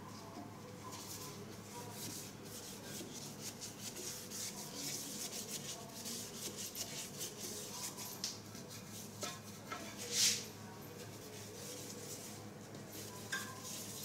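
Faint rubbing on a ceramic bowl's surface while stain-removing neutralizer is spread on: a run of quick scrubbing strokes, with one louder stroke about ten seconds in.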